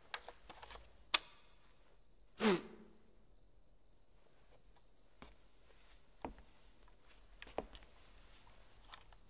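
Hushed pause on a theatre stage: a faint steady high hiss, with a sharp click about a second in, a short louder sound about two and a half seconds in, and a few small knocks later.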